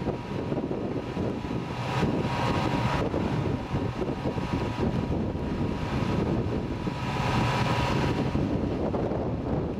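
Wind buffeting the microphone: a steady low rumble that swells into a broader gust hiss twice, about two seconds in and again near the end.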